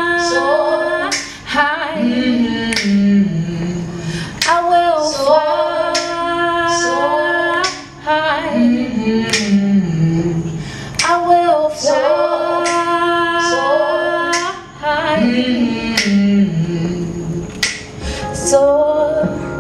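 A woman singing over musical backing, the same phrase coming round about every six or seven seconds.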